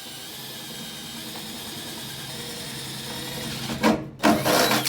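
Power drill running, boring guide holes through the sheet-metal floor pan. Near the end come two louder bursts as the bit works into the metal.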